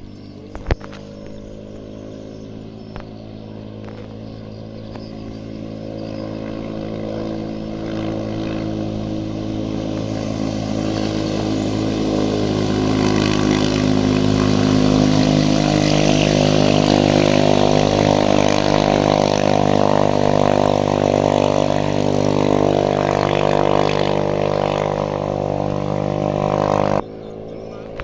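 Modified Yasuka 500 racing-boat engine running hard at a steady pitch, growing louder as the boat comes nearer, then cutting off suddenly near the end. A single sharp tap sounds just under a second in.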